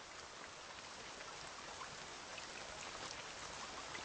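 Light rain falling: a faint, steady hiss with a few small drops ticking.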